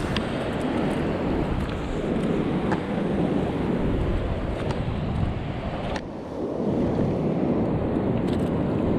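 Wind noise on the microphone over the wash of sea waves, with a few light clicks; the wind drops briefly about six seconds in, then picks up again.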